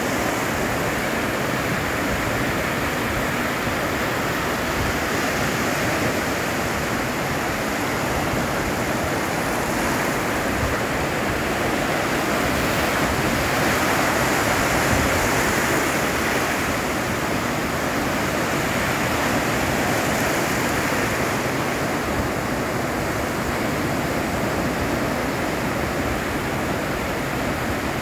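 Ocean surf breaking and washing up the beach: a steady rush of white water that swells a little partway through.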